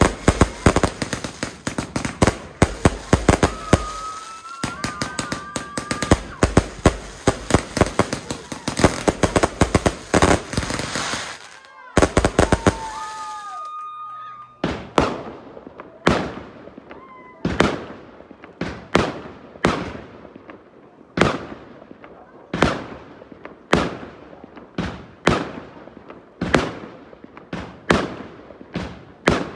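Fireworks going off: a dense, rapid barrage of crackling bangs with short whistles for about the first half, then a regular string of single sharp bangs about once a second, each trailing off.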